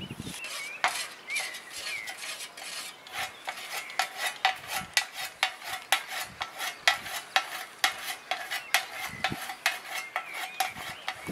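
Scythe blade being whetted with a sharpening stone: quick back-and-forth strokes along the steel, several a second, each with a metallic ring.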